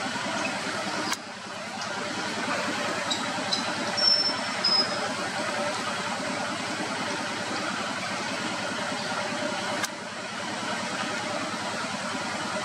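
Steady rush of a flowing river. A few brief, high, thin bird calls sound about three to five seconds in, and two sharp clicks come about a second in and near the end.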